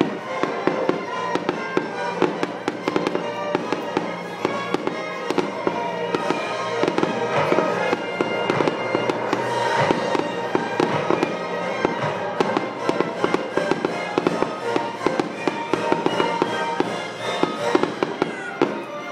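Aerial fireworks going off in a rapid, continuous run of bangs and crackles, over a symphony orchestra playing sustained music.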